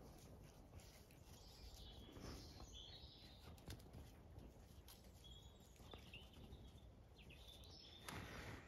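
Near silence, with only faint outdoor ambience: a low rumble and a few faint, short, high chirps, twice in small clusters.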